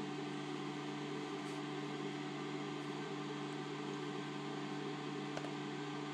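Z-axis stepper motor of a QIDI Tech Shadow 5.5s resin 3D printer humming steadily as it raises the build plate on its lead screw.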